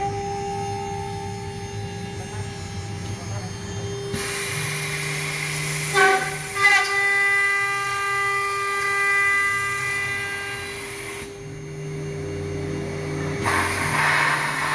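Euromatec CNC lock-slot milling machine cutting a thermal-break aluminium profile: a steady high spindle tone with the hiss of the cutter in the metal, which starts about four seconds in, breaks off briefly near eleven seconds and starts again. Two sharp knocks come about six seconds in, and the low hum of the axis motors shifts in pitch as the head moves.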